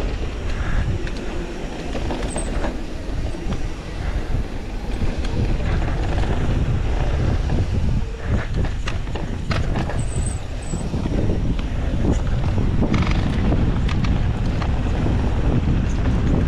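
Mountain bike descending a dry dirt trail at speed: steady tyre rumble over the dirt with rattles and knocks from the bike over bumps, a few brief high squeaks, and wind buffeting the microphone.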